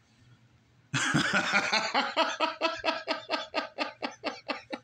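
A person laughing: starting about a second in, a long run of quick, evenly repeated laughs, about four or five a second.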